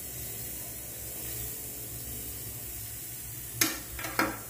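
Bone-in aged steak sizzling on a hot electric smokeless grill, a steady hiss as it sears. Two sharp clicks near the end.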